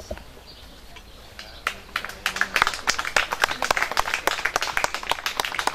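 A small crowd applauding: clapping starts about a second and a half in and quickly becomes dense, irregular handclaps.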